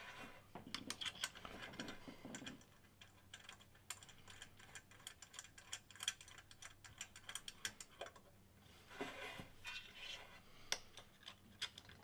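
Faint, irregular clicks and light metallic taps of small turbine-housing bolts and clamp plates being picked up off a hard bench top and fitted to a turbocharger's turbine housing.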